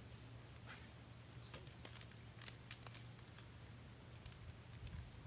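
Faint steady high-pitched drone of insects, with a few soft clicks about one, two and a half and three seconds in.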